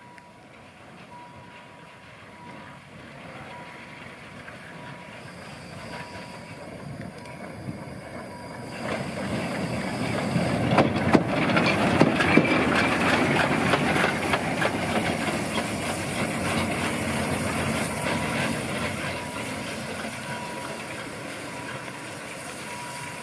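Narrow-gauge steam tank locomotive 99 608, a Saxon IV K, rolling slowly past at close range with steam hissing. The sound swells to its loudest about halfway, with a few sharp clicks as the wheels pass close by, then eases off.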